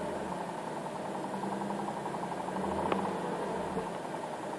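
2009 Infiniti G37's V6 idling with the clutch pedal held down, with a steady fine rattle that the owner hears only while the clutch is down; Infiniti dealers call it a normal sound on all manual G37s. A single light click about three seconds in.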